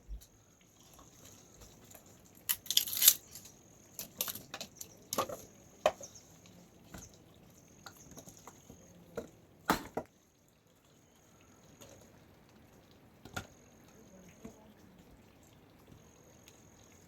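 Irregular knocks and clattering, a few sharp and loud, with quieter scattered taps between, over a faint, high, thin tone that comes and goes.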